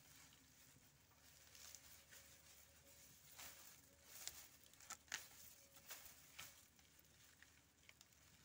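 Faint rustling and crackling of harvested lemongrass stalks and dry leaves handled by gloved hands, with a few sharper crackles around the middle.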